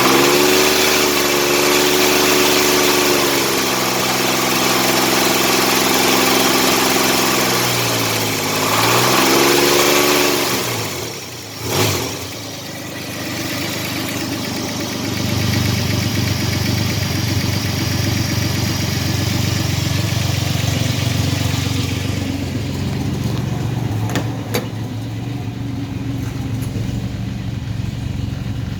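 1985 Chevrolet S10's carbureted 2.8 V6 engine revved up and held twice, then dropping back to a steady idle about eleven seconds in, with one sharp click near twelve seconds. The engine has a knocking noise that the owner has not yet diagnosed.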